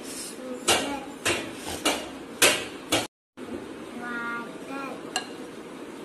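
A spoon knocking and clinking against kitchen dishes, about five sharp knocks roughly half a second apart, then one more a little before the end.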